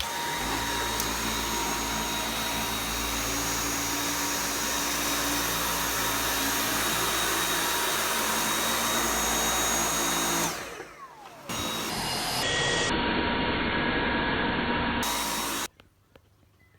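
Dyson V8 cordless stick vacuum running on carpet with a steady, loud whine. It drops away briefly about ten seconds in, pitch falling, then runs again. It stops abruptly near the end.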